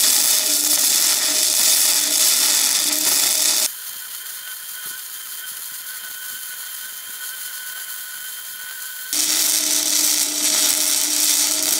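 Flux-core MIG welding arc crackling and sizzling steadily as a bead is run along a steel strip. It is quieter for a stretch from about 4 to 9 seconds in, with a faint steady whine, then loud again.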